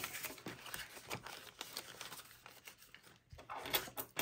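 Paper banknotes and a plastic binder pouch rustling and crinkling as euro notes are handled and slid in, with a few louder clicks near the end.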